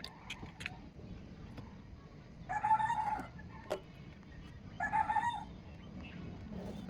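A chicken calling twice in the background, each call a pitched cry of well under a second. A few short sharp clicks, like kitchen utensils, fall between the calls.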